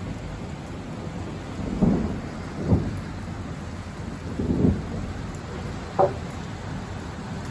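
Steady rain hiss. Four short, louder low thumps come about two, three, four and a half and six seconds in.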